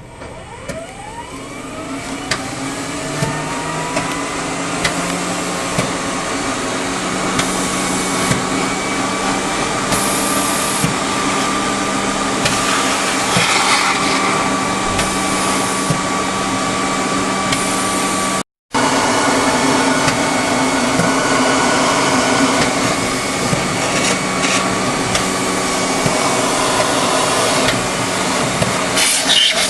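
Vacuum motor spinning up with a rising whine over the first few seconds, then running steadily while loose powder is cleared from a freshly printed part in a powder-bed 3D printer. The sound drops out for an instant about two-thirds of the way through.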